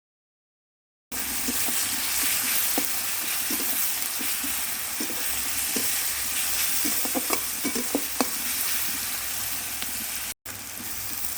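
Onions frying in mustard oil in a kadai, sizzling steadily, with a spatula stirring them and giving short scrapes and knocks against the pan. It starts about a second in.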